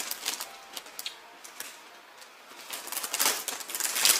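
Crinkling of a plastic potato chip bag being handled, dense crackling at the start, quieter with scattered clicks in the middle, and louder again from about three seconds in.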